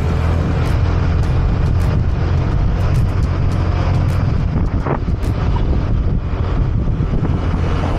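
Motorcycle riding at road speed: a steady engine and wind rumble, heavy in the low end, picked up by a small action camera's microphone.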